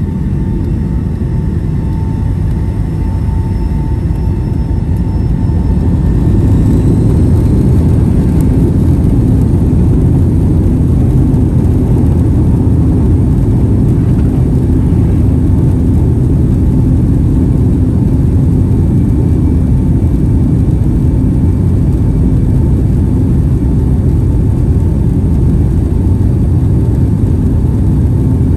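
Boeing 757-200's jet engines spooling up to takeoff power, heard from the cabin over the wing: the noise builds over the first several seconds, with a thin whine rising about six seconds in. It then holds a steady, loud rumble through the takeoff roll.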